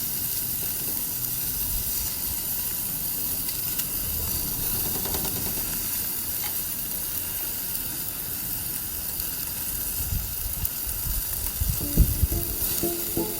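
Marinated pork sizzling steadily on a grill while it is basted with achiote oil and habanero barbecue sauce. Music comes in at the very end.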